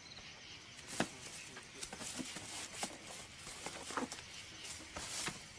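Scuffling as a man tries to handle a condor at the enclosure wall: scattered knocks, clicks and rustles, with a short louder rush of noise about five seconds in.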